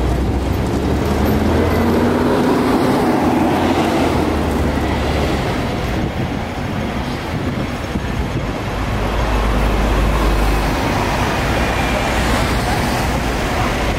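Busy city street traffic: engines running and vehicles passing, with a deep low engine rumble that swells about two-thirds of the way through.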